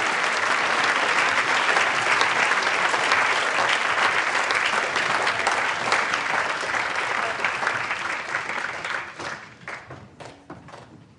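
Television studio audience applauding: dense clapping that thins out from about eight seconds in to a few scattered claps and dies away near the end.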